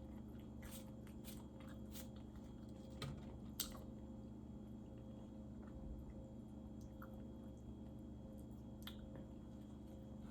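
A person chewing food close to the microphone: faint wet mouth clicks and squishes, with a sharper click about three and a half seconds in, over a low steady hum.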